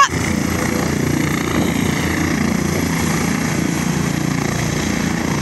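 Air ambulance helicopter lifting off and hovering low, its rotor and engine running loud and steady.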